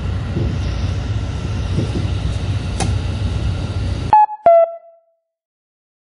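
Steady low running rumble heard from inside the Crystal Express, a KiHa 183 series diesel train, with a faint click about three seconds in. Just after four seconds it cuts off suddenly and a two-note descending chime sounds.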